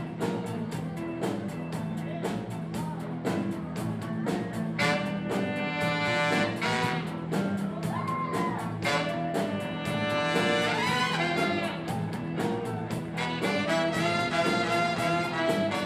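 Blues-style band music with a brass section over a steady drum beat; the horns come in strongly about five seconds in.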